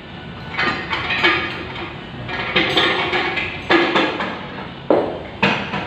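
Metal parts of a manual transmission clinking and knocking together as they are handled, with a few sharper knocks in the second half.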